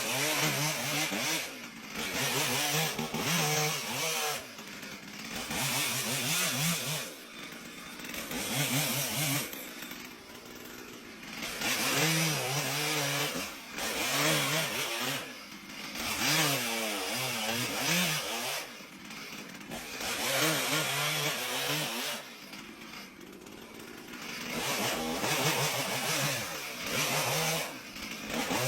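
Petrol chainsaw engine revving up hard and dropping back again and again, about every two to four seconds, as it cuts wood.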